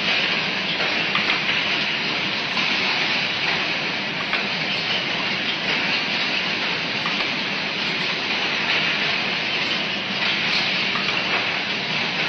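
Steady machine din of a rigid-box production line, a continuous hiss with faint scattered clicks.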